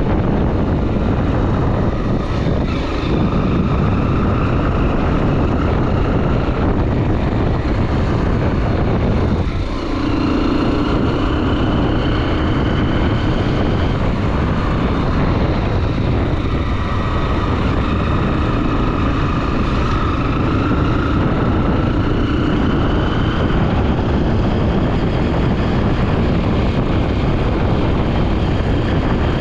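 Honda XR 250 Tornado's single-cylinder four-stroke engine running under way, heard with heavy wind noise as the bike is ridden. The engine pitch rises and falls with speed, with a brief drop in level about ten seconds in.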